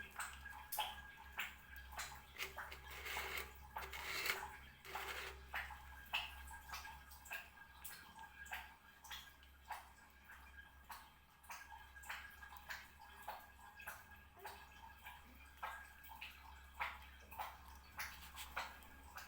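A cat eating, with wet smacking and chewing clicks coming irregularly a few times a second, a little denser about three to five seconds in.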